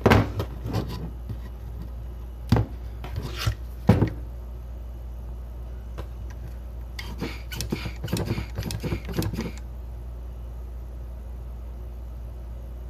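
A hand vacuum pump and a VW D-Jetronic MAP sensor being handled and hooked up for a vacuum test: a few sharp plastic-and-metal knocks in the first four seconds, then a run of quick clicks for a couple of seconds past the middle as the pump is worked.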